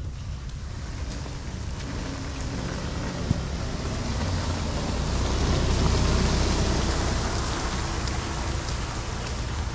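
Rain falling on a flooded road while a motor scooter rides through the water, its engine and splashing growing loudest about halfway through, then fading as it moves away.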